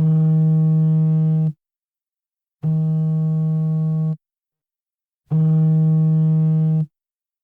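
Mobile phone vibrating in its ringing pattern: three low, steady buzzes of about a second and a half each, with short silent gaps between them.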